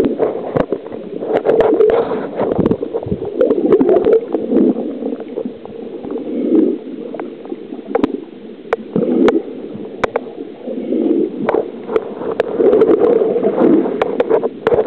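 Muffled underwater sound from a camera in a waterproof housing: water gurgling and swelling in uneven surges, with scattered clicks and knocks.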